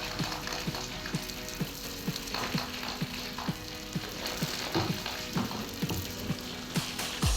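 Background music with a steady, regular beat of low thumps, under an even hissing, crackly noise.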